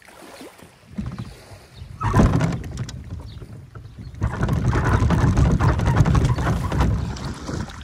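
Wind buffeting the microphone in gusts beside open sea water, rising about a second in, with a sharp peak just after two seconds and a sustained loud stretch from about four seconds until near the end.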